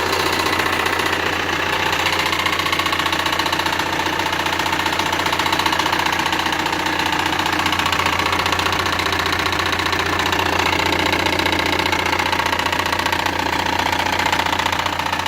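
Car engine running steadily with a loud, rapid knocking from the front of the engine. The knock comes from a loose crankshaft pulley.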